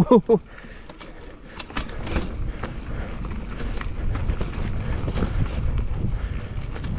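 Mountain bike riding fast down a rough trail of roots and rocks: tyres rumbling over the ground with many sharp knocks and rattles from the bike. A brief falling squeal sounds right at the start.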